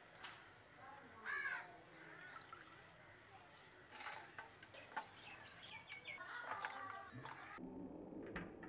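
Crows cawing in the background, the clearest caw about a second in, with faint clicks of wet creeper stalks being handled in a steel pot of water.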